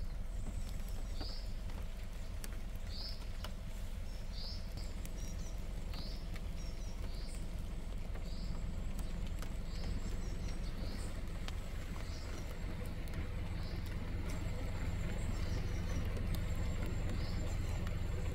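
A forest bird repeats a short, high, falling call about every second and a half, with brief higher twittering now and then. Beneath it runs a steady low rumble.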